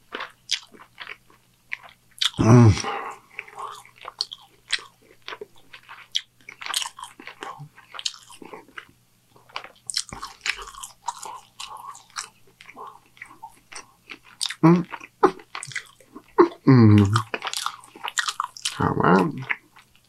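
Close-miked chewing of a Burger King Triple Whopper, with a constant run of wet mouth clicks, smacks and soft crunches. A few loud, short 'mm' sounds break in, one about two and a half seconds in and three in the last six seconds.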